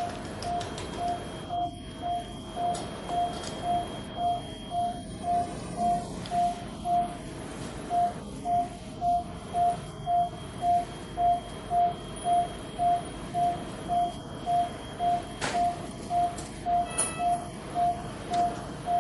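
Bedside patient monitor beeping with each heartbeat: a short mid-pitched beep a little over twice a second, about 130 a minute, a typical newborn heart rate.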